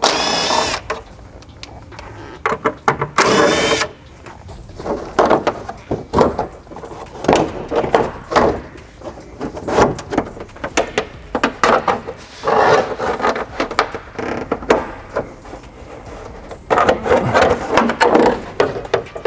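Two short bursts of a power tool, one at the start and one about three seconds in, then scattered knocks and clanks of tools and metal parts during car suspension work.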